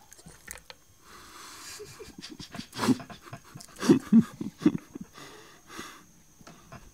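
A small dog breathing hard, with a few short, louder sounds bunched between about three and five seconds in.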